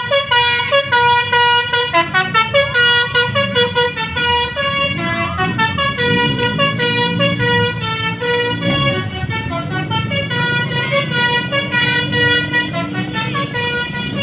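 Bus basuri (telolet) musical air horns playing a melody of stepped notes, quick repeated notes in the first couple of seconds, then longer held notes. A bus engine runs low underneath.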